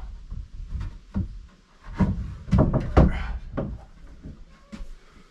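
Wooden wall boards knocking and clattering, several irregular knocks, as a board is lifted and fitted into place on the wall.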